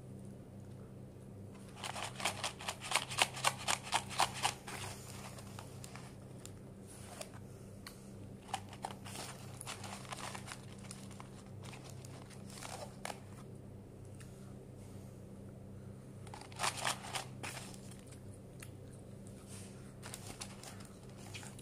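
A cardboard McDonald's fries carton crinkling and rustling as it is handled, in two short bursts of quick crackles and a few scattered ones, over a low steady hum.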